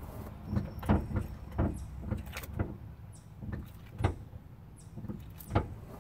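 About ten irregular knocks and thumps, a second or less apart, the loudest about a second in and again about five and a half seconds in.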